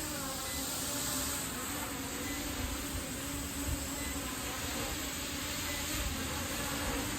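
Quadcopter drone with brushless motors buzzing steadily in flight, the pitch of its propellers wavering slightly as it holds its position. Beneath it, wind rumbles on the microphone.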